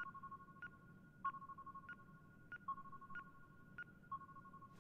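Faint electronic beeping from a sci-fi tracking-screen sound effect: two soft steady tones with short blips about every two-thirds of a second, the sound of a surveillance display following a target.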